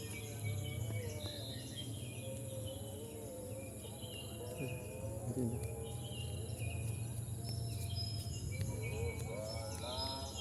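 Rice-field ambience at dusk: a steady high-pitched insect drone with crickets, many short bird chirps repeating throughout, and a low, steady wind rumble.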